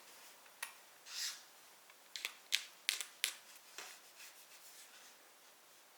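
A series of light, sharp clicks and taps, most of them bunched in the middle, with a short soft swish about a second in: small objects such as a wax crayon being handled on a workbench.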